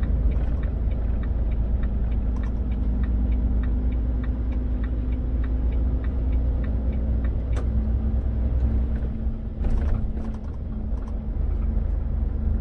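Volvo FH truck's diesel engine running steadily under way, heard from inside the cab, with a light regular ticking about three times a second that stops about eight seconds in. A brief louder bump or rattle comes about ten seconds in.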